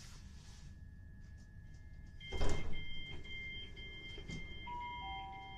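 Class 377 Electrostar's door-closing sequence: a sudden loud clunk about two seconds in, then rapid repeated warning beeps as the sliding passenger doors close before departure.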